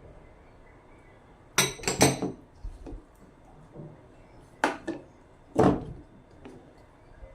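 Kitchenware clattering: sharp clinks and knocks of dishes and utensils in three short clusters, the loudest about two seconds in.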